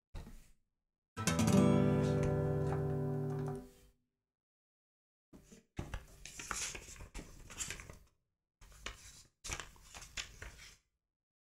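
A single guitar chord strummed once and left to ring, fading away over about two and a half seconds. It is followed by several short bursts of rustling and handling noise.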